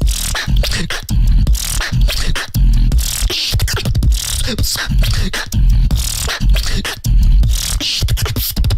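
A beatboxer's routine: deep bass kicks on a steady beat, with hissy snare and hi-hat sounds made by mouth between them.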